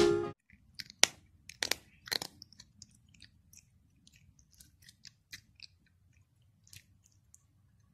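An Egyptian Mau cat crunching dry kibble eaten from a hand: separate sharp crunches, loudest and closest together in the first couple of seconds, then fainter and more spaced out.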